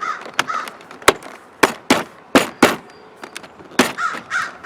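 A run of about six sharp plastic clicks and knocks over two to three seconds, as a car's power window switch and its wiring plug are snapped into place in the door panel.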